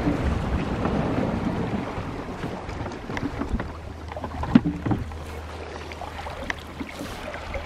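Small outboard motor pushing a dinghy, easing off over the first few seconds to a quieter, steady low running. Water washes along the hull, and there are a few sharp knocks partway through.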